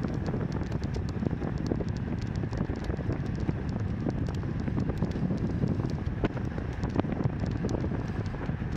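Wind buffeting the microphone of a camera carried on a moving road bicycle, a steady low rumble, with many small scattered clicks and rattles over it.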